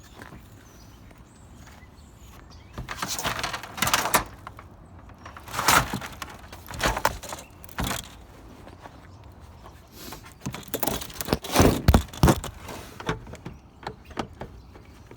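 Objects being handled and moved about while rummaging through junk: a string of irregular knocks, clunks and rattles in several clusters, the loudest a little before the middle and again about three quarters of the way through.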